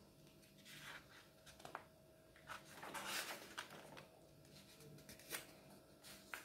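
Pages of a glossy paper instruction booklet being turned by hand: a faint paper rustle a little under a second in, then a longer swish of a page flipping over about three seconds in, with a few light ticks of fingers on the paper.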